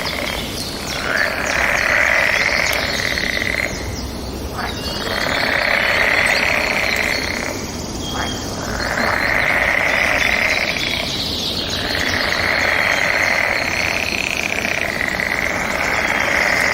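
Forest ambience: birds chirping over a loud droning chorus that swells for about three seconds and fades, four times.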